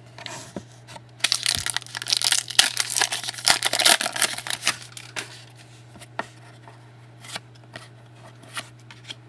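A trading-card pack's wrapper crackling and crinkling for a few seconds as it is torn open. After that come scattered light clicks and rustles as the cards are handled.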